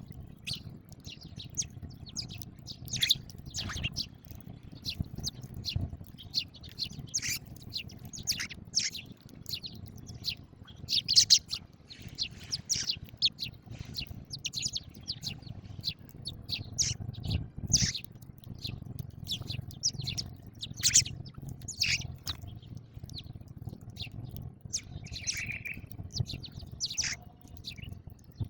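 House sparrows chirping while feeding: a busy run of short, irregular chirps, several birds overlapping, over a steady low rumble.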